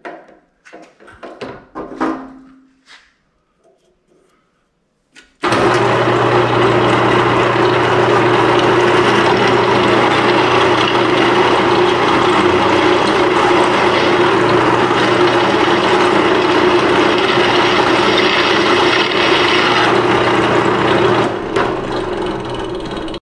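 A few light clicks and knocks from handling the drill press chuck. About five seconds in, the drill press motor starts and runs steadily with a low hum while the bit drills into a metal bracket, enlarging a pilot hole. It eases slightly near the end, then cuts off.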